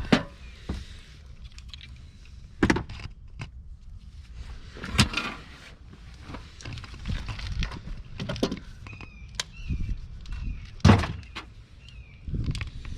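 Scattered knocks and clunks, about five sharp ones spaced a few seconds apart, with faint squeaks in between: hand tools and interior trim panels being handled while a Prius's rear interior is stripped to reach the hybrid battery cover.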